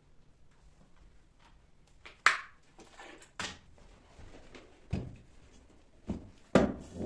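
Household handling noises: about five separate sharp knocks and clunks of objects being moved or set down during housework. The first two are sharp and bright, and the later ones are duller; one of the loudest comes near the end.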